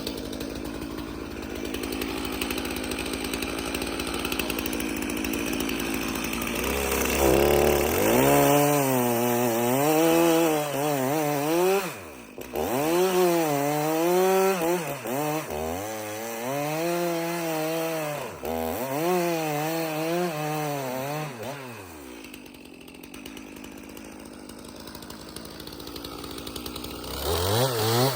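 Two-stroke chainsaw cutting wood. Its engine revs up and down over and over through the middle, drops briefly twice, then settles to a lower steady run and revs up again near the end.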